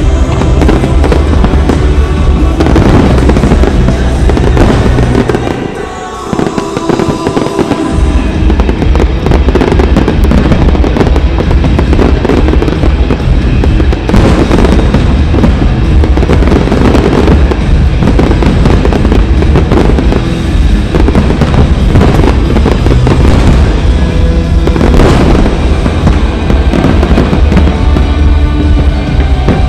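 Fireworks display: a continuous barrage of shell bursts and crackle with deep booming, over show music. A brief lull about six seconds in, then the barrage resumes.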